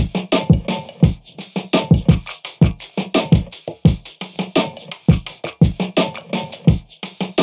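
Background music with a steady electronic drum beat.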